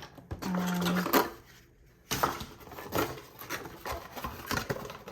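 Plastic packaging rustling and crinkling with many small clicks and knocks as hard plastic hair-tool attachments are unwrapped and handled. The handling gets busier about two seconds in.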